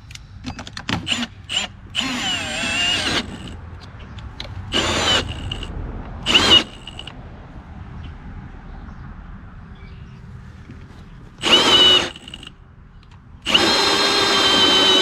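Cordless drill boring through house siding in about six short bursts, stopping and starting, its motor pitch rising and dipping under load; the longest and loudest burst comes near the end. The stalling is what the user takes for a drill acting like it has a low battery.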